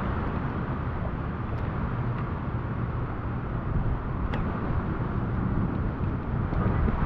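Steady tropical-storm wind noise with a low rumble, and a few faint ticks.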